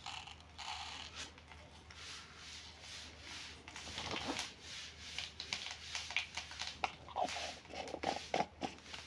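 Mustard seeds sputtering and popping in hot oil in a pan: a soft sizzle with irregular sharp crackles that come thicker from about four seconds in, the tempering stage before the greens go in.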